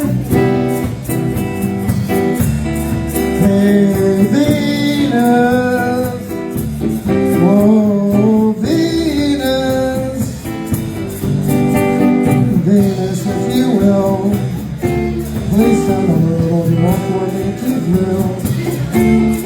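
Live polka band music: a band playing a tune with guitar accompaniment under a melody line.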